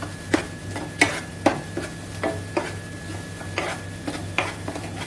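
A spatula scraping and stirring thick laddu halwa in a kadhai, in irregular strokes about two a second. The milk has cooked off and the mixture is thickening.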